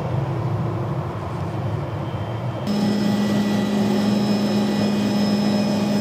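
A small helicopter flying overhead, its rotor and engine making a rough low rumble. About two and a half seconds in this changes to the steady drone and whine of a helicopter heard from inside its cabin.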